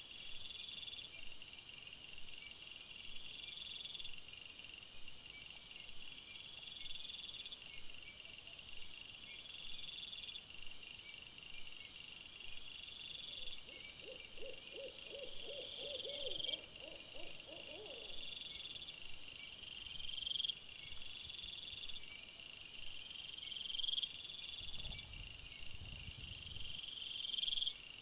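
Crickets chirping in a steady, repeating night chorus. About halfway through comes a short run of rapid, low pulsed calls from some other animal, and near the end a brief low rumble.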